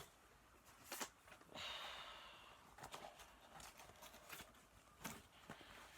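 Near silence: quiet room tone with a few faint taps, and a soft breathy rush about a second and a half in.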